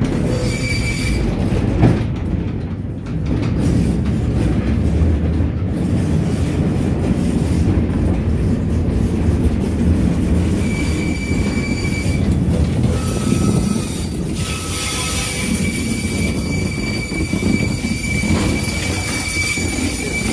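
Railway coach running along the track, heard from inside: a steady low rumble of wheels on rail with a sharp knock about two seconds in, and a thin, high, steady wheel squeal that sets in about halfway through and holds on.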